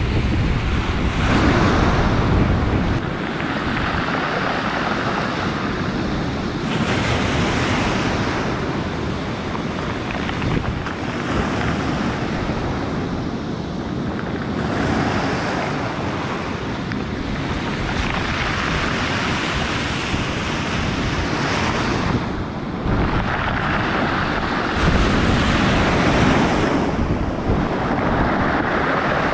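Storm surf: heavy waves breaking and washing in surges every several seconds, over a constant roar of the sea, with wind buffeting the microphone in gusts.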